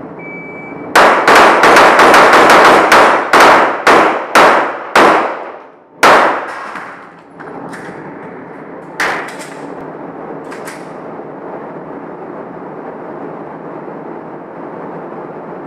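A fast string of about a dozen pistol shots in some five seconds, each echoing off the indoor range's walls, then one more shot after a short pause. Two fainter sharp cracks follow a few seconds later.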